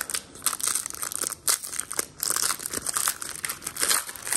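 Foil wrapper of a Panini Recon basketball card pack being torn open and crinkled by hand: an irregular run of sharp crackles and rustles.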